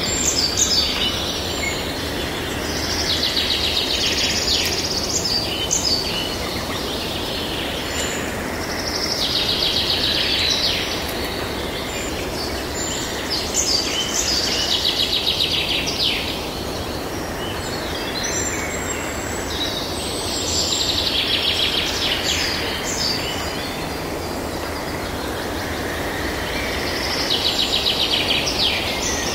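A songbird singing over steady background noise: about five phrases of fast trilled notes, each lasting around two seconds and coming every five or six seconds.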